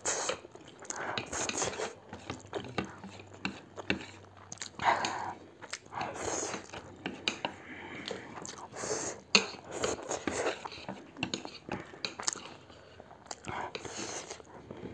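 Two people eating instant noodles and pork with chopsticks: chewing and bites, with chopsticks clicking against the plates.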